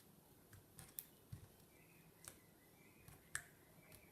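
Faint, sparse clicks and pops of clear glue slime being handled for ASMR, about four sharp clicks spread over a few seconds, otherwise near silence.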